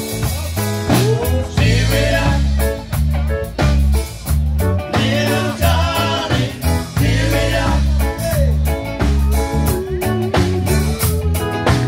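Live rock band playing: electric bass, electric guitar and drum kit, with a man singing lead into the microphone.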